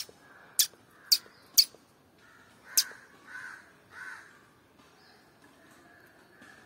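Indian palm squirrel giving sharp, high-pitched chip calls, five of them in the first three seconds. Two softer, lower calls follow about a second apart.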